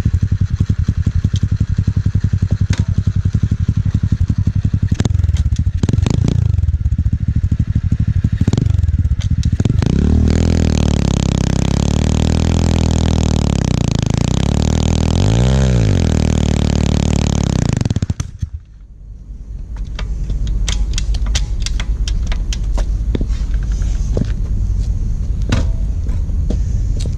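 Motorcycle engine idling, then revved hard and held at high revs for about eight seconds in a burnout on the rear tyre, dropping suddenly back toward idle about eighteen seconds in. The burnout raises no smoke but wears the rear tyre bald.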